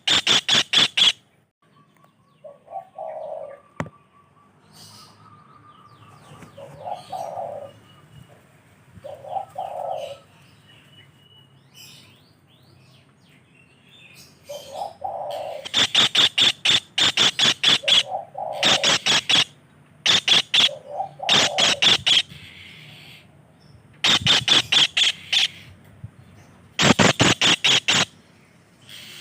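Bird calls: loud bursts of rapid, sharp, rattling notes, about eight a second, each burst lasting a second or two and repeated several times, with softer low hooting notes in between. The first third is quieter, with only the low hoots and faint high calls.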